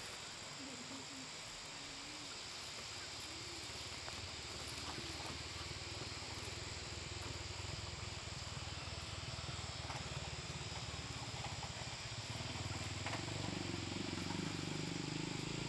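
Steady high insect chorus of crickets in an outdoor rural setting. A low rumble builds under it in the last few seconds.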